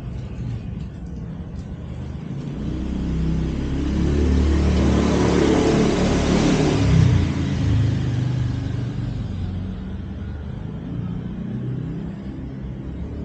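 A motor vehicle passing by: its engine and road noise swell up, are loudest about six to seven seconds in, then fade away.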